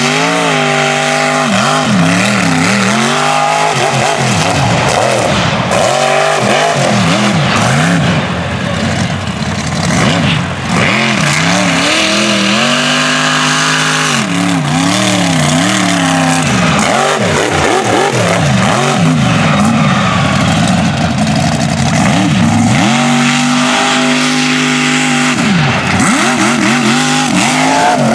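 Mega truck's engine revving hard and falling back again and again as the truck is driven through an obstacle course, its pitch sweeping up and down with each burst of throttle.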